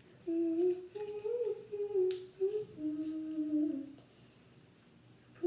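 A child humming a short wordless tune, a few held notes stepping up and down, for about four seconds, with one brief click partway through. The voice starts again at the very end.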